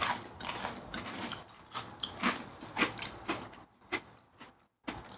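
Crunching and chewing of crisp Koala's March chocolate-filled cookies: a run of irregular crunches that thin out and die away near the end.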